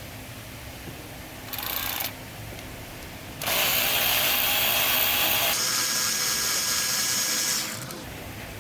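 Handheld power driver spinning out the bolts of the EGR exhaust pipe on a 5.7 Hemi: a short half-second burst, then a steady run of about four seconds whose whine steps up in pitch about halfway through.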